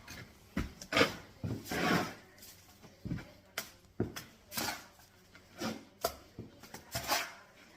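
Mason's steel trowel scraping and knocking, working mortar into the block joints. The short scrapes and taps come at an uneven pace, one or two a second.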